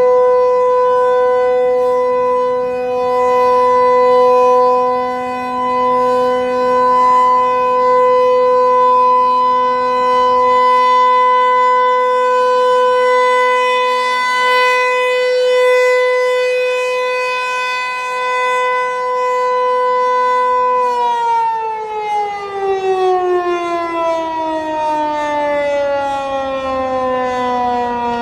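Federal Signal 508-128 single-tone, eight-port chopper warning siren sounding its steady Alert tone, swelling and fading in loudness. About 21 seconds in it shuts off and winds down, the pitch falling steadily.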